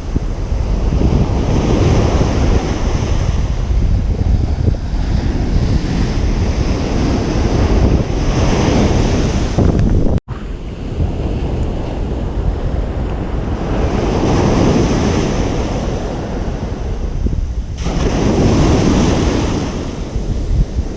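Ocean surf on a beach, waves breaking and washing in with a swell about every five or six seconds, over a steady low rumble of wind on the microphone. The sound cuts out for an instant about ten seconds in.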